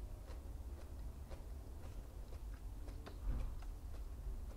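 Close-miked biting and chewing of raw magnolia petals: irregular small crisp clicks, with a louder crunch about three seconds in, over a low steady hum.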